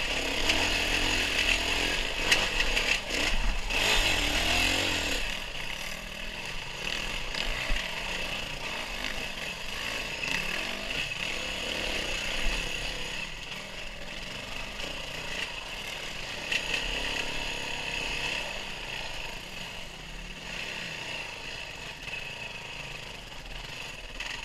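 Small off-road vehicle engine running on a trail ride, buzzing with a rushing noise. It is louder for the first five seconds, then eases off and runs more quietly.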